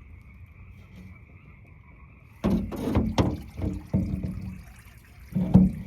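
Frogs calling steadily in the background. From about two and a half seconds in come loud splashes and clunks of water and gear as the fish trap is hauled up out of the water, with another splash just before the end.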